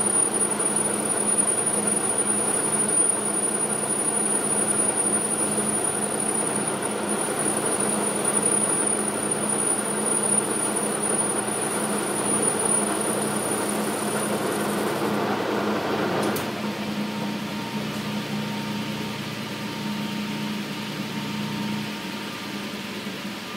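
Logan metal lathe running while a part is turned, a steady machine drone with a thin high tone that stops a little past halfway. About two-thirds in the running noise drops, and it drops again near the end as the lathe is shut off and winds down.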